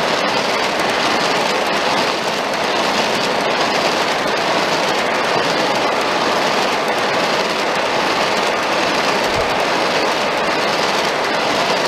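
Oiled steel wheels of a long string of 1:29-scale Aristo-Craft 100-ton coal hoppers rolling over the track, making a steady rolling noise.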